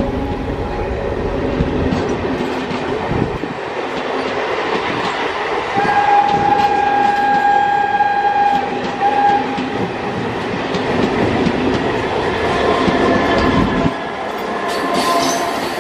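Brindavan Express passenger coaches rolling past close by, their wheels running over the rails with a continuous rumble. A long, steady high tone sounds for about three seconds, starting about six seconds in.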